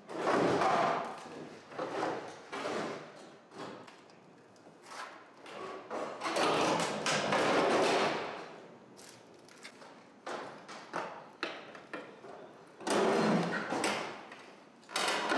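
Thuds, knocks and scraping from the bodywork of a stripped Infiniti G35 coupe as its cut-off roof is pushed and wrestled free. There are three louder stretches of scraping and crunching, a second or two each, at the start, in the middle and near the end.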